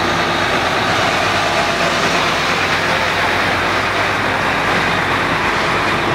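Heavy fire engines driving slowly past, a Mercedes-Benz turntable-ladder truck with Magirus bodywork first and Scania fire engines behind. Their diesel engines run steadily.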